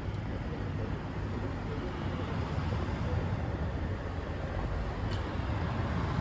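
Steady low rumble of street traffic, growing slightly louder partway through, with a faint click about five seconds in.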